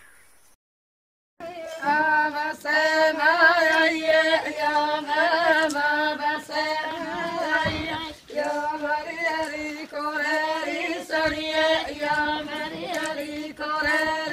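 Singing: a chant-like sung line over a steady held pitch, beginning after about a second and a half of silence.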